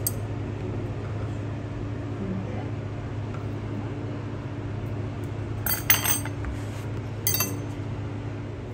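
Glass or tableware clinking, a couple of sharp ringing clinks about six and seven seconds in, over a steady low hum.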